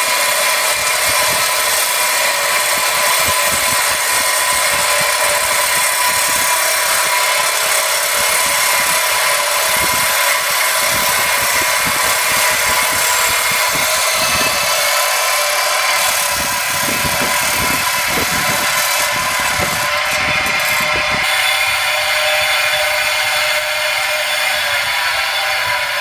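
Wet tile saw running with its blade cutting through a fossilized lightning whelk shell: a loud, steady high-pitched whine with grinding.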